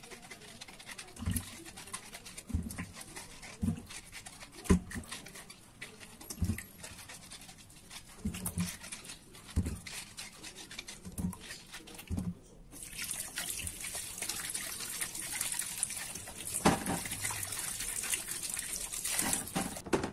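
Hands scrubbing lemons in a stainless steel bowl of water: rubbing and splashing with soft knocks about once a second. About two-thirds of the way through, a kitchen tap comes on with a steady rush of running water, which stops just before the end.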